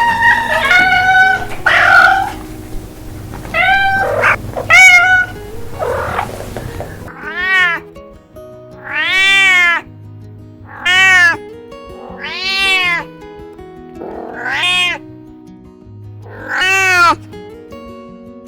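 Cats meowing over background music: a run of meows in the first seven seconds, then after a change of scene about seven more separate, drawn-out meows, each rising and then falling in pitch.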